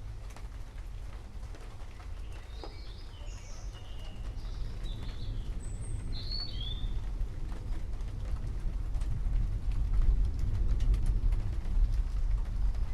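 Forest ambience: several birds chirp in short high calls in the first half, over a low rumble that swells louder in the second half.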